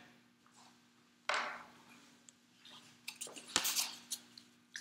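Sheets of paper being handled: a soft rustle about a second in, then a run of crinkling and crackling near the end, over a faint steady room hum.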